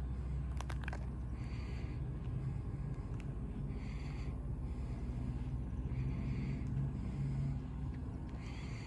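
Steady low vehicle rumble, with a soft higher hiss that comes back about every two and a half seconds and a few light clicks about a second in.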